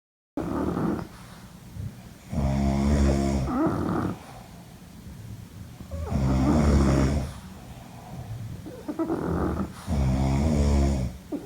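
Two sleepers snoring in turn. Three long, loud snores come about four seconds apart, with shorter, softer snores in between.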